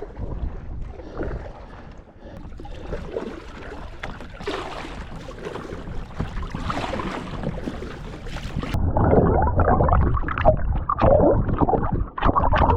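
Kayak paddling on a pond: paddle blades dipping and water gurgling against the hull, over a steady rush of wind and water. About three-quarters of the way in, the sound gets louder and duller.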